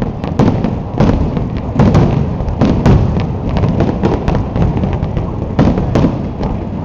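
Fireworks display with aerial shells bursting in quick, irregular succession, sometimes several bangs a second, over a continuous low rumble.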